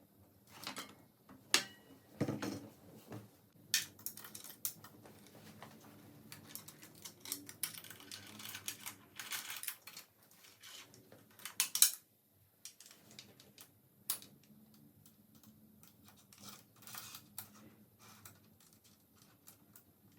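Irregular clicks, taps and short metallic rattles of tools and small bicycle parts being handled, with one sharper click about twelve seconds in.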